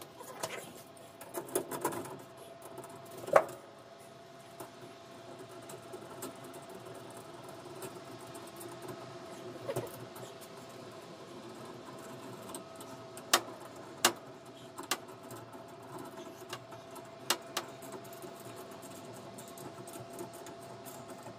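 Metal clinks and knocks from string-trimmer rack hardware being fitted and adjusted by hand. There is one sharp knock about three seconds in, then a few more clicks past the middle, over a steady faint hum.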